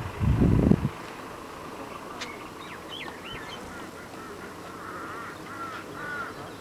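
A brief low rumble in the first second, then birds calling: a few short curving chirps, followed about five seconds in by a run of repeated arched notes.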